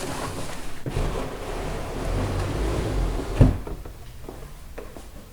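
A mechanics tool set case being handled and opened: a rough rubbing, scraping noise for about three seconds, ending in one sharp knock, then quieter handling.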